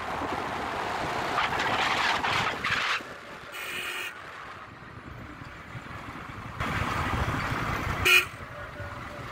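Vehicle horn tooting twice, a short toot about three and a half seconds in and a brief sharp one about eight seconds in, over the noise of vehicles passing on the road.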